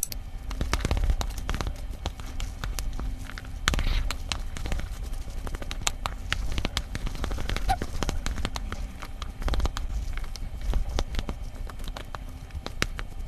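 Wooden chopsticks mixing sauce-coated black-bean instant noodles (Jjapagetti) in a bowl: a steady run of many small sticky clicks and crackles as the noodles are tossed.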